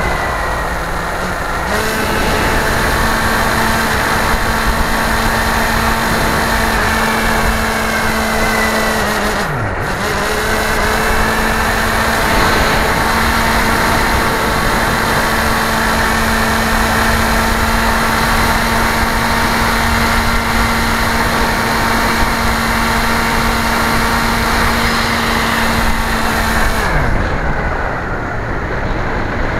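Motor and propeller of a radio-controlled model aircraft, heard from its on-board camera: a steady motor whine over wind rush. The throttle rises about two seconds in, is cut briefly near ten seconds (the pitch dips, then climbs back), and is pulled back near the end, the whine falling away under the wind.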